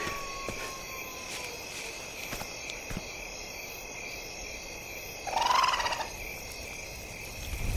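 Night forest ambience: a steady, high insect drone, with a faint held tone dying away in the first second and a half. About five seconds in comes a short, loud call that pulses rapidly, lasting under a second.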